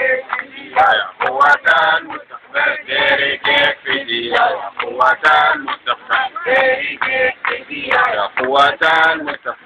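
A man chanting protest slogans through a handheld megaphone, in short loud chanted phrases.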